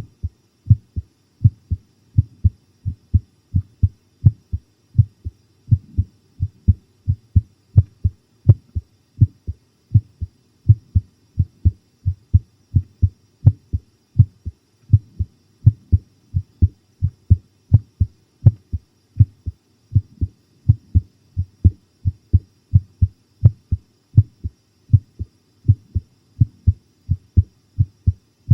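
A person's heartbeat recorded close up at the chest: a steady, even run of short low thumps. Now and then a faint sharper click sits among the beats.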